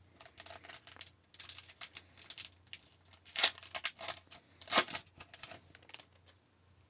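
Crinkling and tearing of a foil hockey card pack wrapper being opened, with cards being handled, in irregular sharp rustles, loudest about three and a half and five seconds in, then tapering off.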